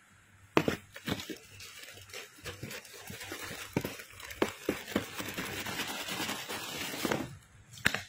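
Paper packaging crinkling and rustling as a sandal is unwrapped and set down, with sharp handling clicks and knocks. The rustle stops abruptly shortly before the end.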